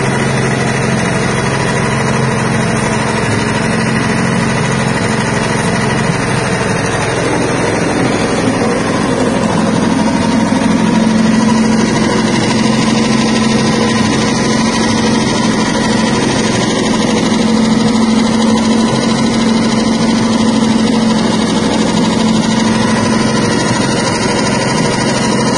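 Stainless-steel soybean dehulling machine running steadily, its motor giving a constant mechanical hum with the beans churning inside. About eight seconds in, the pitch of the hum changes to a steadier, higher tone.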